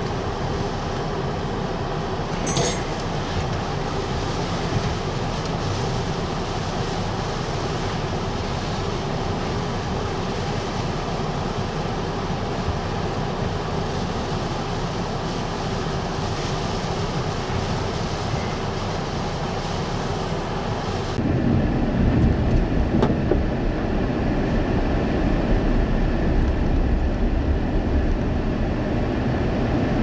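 Hurricane winds and rain beating on a stopped vehicle, a steady rushing noise. About two-thirds of the way in it changes abruptly to the lower, louder rumble of a car driving on a road.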